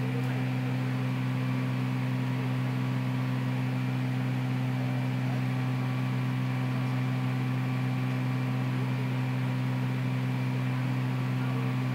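Steady low electrical hum with a buzzy edge, a constant noise on the recording that the uploader puts down to his computer.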